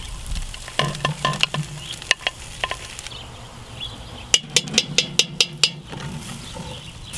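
Diced onions scraped into a hot cast-iron Dutch oven and stirred with a wooden spoon, sizzling faintly in the fat left from browning beef. Utensils knock against the pot, with a quick run of about eight sharp taps a little past halfway.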